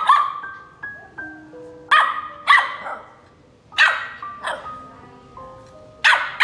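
Small fluffy puppy barking at an adult dog: about six sharp barks, in pairs and singles, over soft background music with sustained notes.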